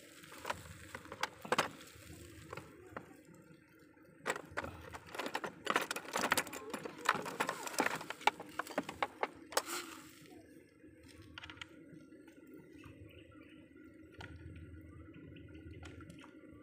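Irregular clicks, taps and small knocks of hands working on a radio-controlled boat's hull and propeller drive while a different propeller is fitted. The clicks are thick for the first ten seconds or so, then die down to a few.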